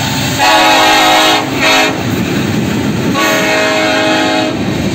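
Freight train's air horn sounding a long blast, a short one and another long one, over the low rumble of KCSM diesel locomotives and freight cars rolling past.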